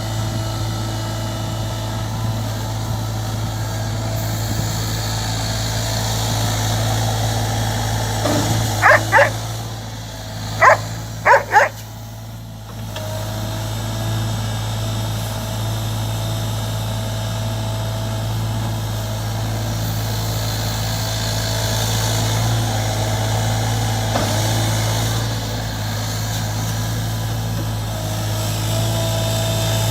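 SANY mini excavator's diesel engine running steadily, easing off briefly about twelve seconds in. A dog barks four times, around nine to twelve seconds in.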